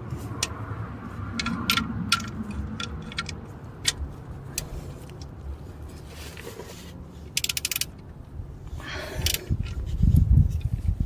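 Metal clicking and scraping of a ratchet and socket screwing the oil drain plug back into the oil pan, with scattered single clicks and a fast run of ratchet clicks about seven seconds in. A low thump comes near the end.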